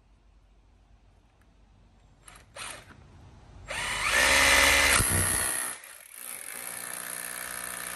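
Cordless SDS drill boring a fixing hole through a uPVC window frame into the concrete-block wall. Two brief trigger blips come about two and a half seconds in, then the drill runs loud for about two seconds, stops briefly near six seconds, and goes on drilling steadily at a lower level.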